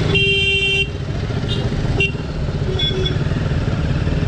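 Motorcycle engine running steadily at low speed, with a vehicle horn sounding for under a second just after the start and a short toot about two seconds in.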